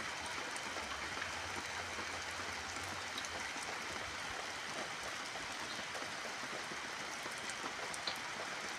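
Steady rain falling, heard as an even hiss with scattered ticks of single drops.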